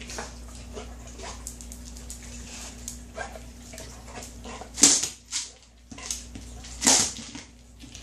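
Dog knocking a food-filled Kong Wobbler plastic treat toy around with its nose: a string of light knocks and rattles, with two louder clacks about five and seven seconds in.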